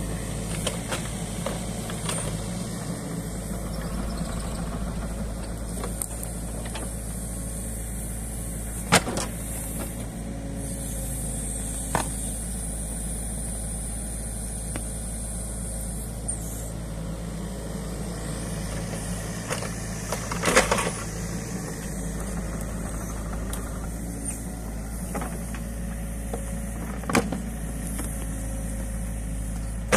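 New Holland Kobelco E50.2 mini excavator's diesel engine running steadily while its hydraulic tilting ditch bucket scrapes the bank. A few sharp knocks stand out, the loudest about two-thirds of the way through.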